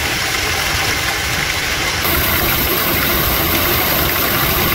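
Ford F-150's 4.2-litre V6 idling with the serpentine belt and pulleys turning and the AC compressor engaged, a steady run with a faint high tone over it. The belt tensioner has lost its tension and wobbles as the engine runs, which the owner takes for the cause of the belt's squeal. A high hiss grows louder about two seconds in.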